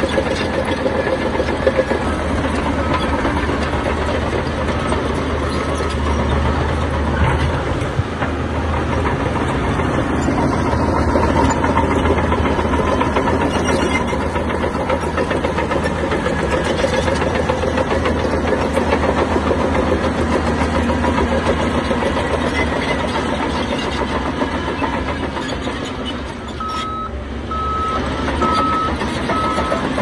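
Heavy diesel earthmoving machinery running steadily under load. A reversing alarm beeps about once a second a few seconds in, and again near the end.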